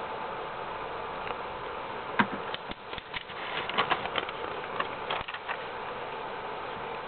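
Sheets of drawing paper being handled and a page turned over: a few seconds of crackling and crisp clicks starting about two seconds in, over a steady hiss.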